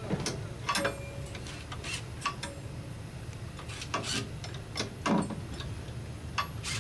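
Irregular light metal clicks and knocks, roughly one a second and unevenly spaced, over a steady low hum, from hand work on a rotary screw air compressor being serviced.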